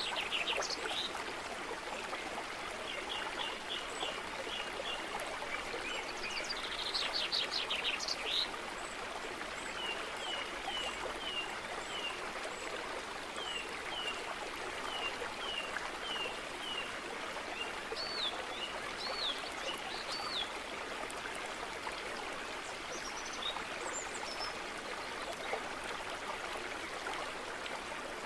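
Stream running steadily with birds calling over it: quick trills near the start and again about seven seconds in, then a string of short chirps about twice a second, and a few looping whistles later on.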